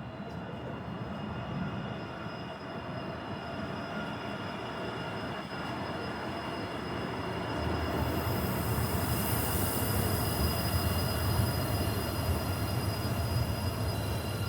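Toronto transit train (subway or light rail) running on rails, with several steady high-pitched tones over the rumble. It grows louder about eight seconds in as the rumble and a hiss of wheel and track noise build.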